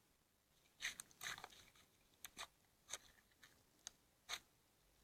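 Faint crackling clicks and pops of slime being squeezed and worked by hand, about eight sharp snaps at irregular intervals.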